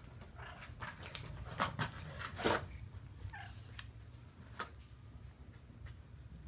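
Kittens scuffling about in a cardboard box, giving irregular scratches and knocks on the cardboard, the loudest about two and a half seconds in, with a few faint kitten mews.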